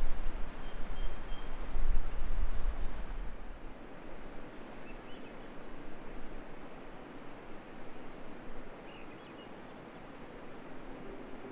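Steady rush of a creek running high after heavy rain, with a few short bird chirps in the first three seconds. A low rumble sits under it at first, then drops away about three and a half seconds in.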